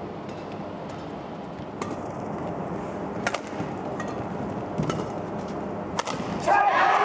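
Badminton rally: a feathered shuttlecock struck back and forth with rackets, sharp hits about every second and a half over a steady murmur of arena crowd. Near the end the crowd noise swells sharply.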